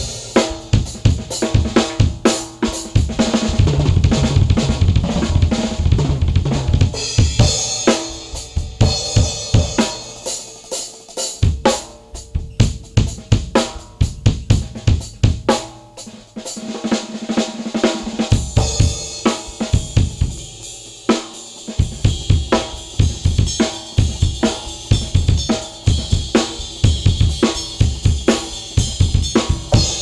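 Acoustic drum kit played solo with sticks in a busy improvised groove of snare, bass drum, hi-hat and cymbals. Near the middle the bass drum mostly drops out for a lighter passage, then the full kit returns with heavier cymbal wash.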